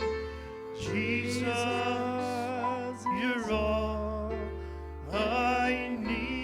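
Slow worship music: a voice singing long, sliding phrases over held chords and a low bass.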